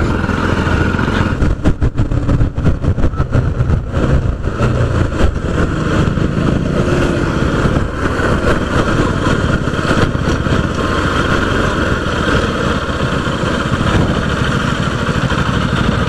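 Motorcycle engine running as the bike is ridden, with rushing wind noise over the microphone.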